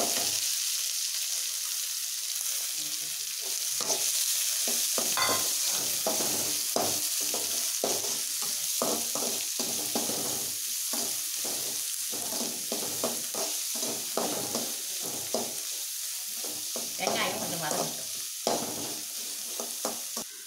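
Chopped onions sizzling in hot oil in an aluminium kadai as they are sautéed for a tempering with mustard seeds and urad dal. A steel slotted spoon scrapes and stirs them in frequent short strokes. The sizzle eases slightly toward the end.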